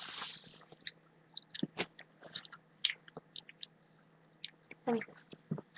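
A person chewing a jelly bean with the mouth close to the microphone: soft, scattered wet clicks and smacks. A brief voice sound comes about five seconds in.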